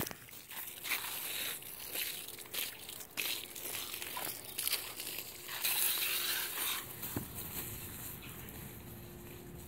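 Garden hose spraying water while a German shepherd bites and plays at it: irregular crackling, rustling and spattering noise that settles about seven seconds in.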